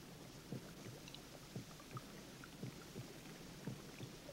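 Faint water in a bathhouse pool: soft, irregular little plops and laps about twice a second.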